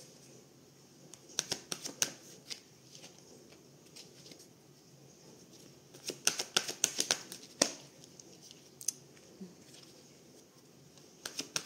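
Tarot cards being handled, shuffled and laid out one at a time: three short runs of quick, crisp card clicks and snaps, about a second in, around the middle, and near the end, with quiet between them.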